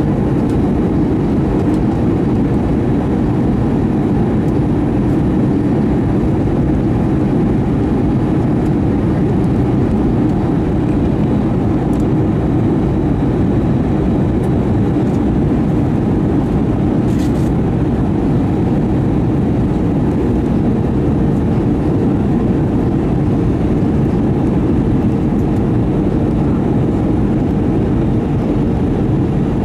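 Steady cabin noise of an Airbus A320-232 on its descent, heard from a window seat beside the wing: rushing airflow and the hum of its IAE V2500 engine, with a steady mid-pitched drone running through it.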